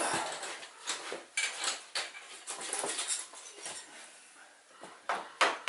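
Hand tools and sockets clinking and rattling against metal: irregular short clinks and rustling, with no steady rhythm.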